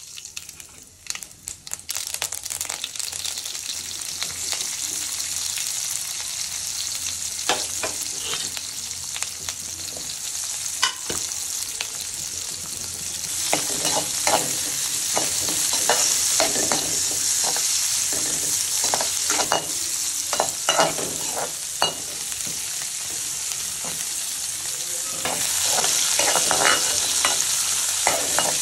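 Hot gingelly oil sizzling in an aluminium kadai with mustard seeds and urad dal, with scattered sharp pops. Partway through, sliced onions and green chillies go in and the sizzle grows louder while a metal ladle scrapes and knocks against the pan as they are stir-fried.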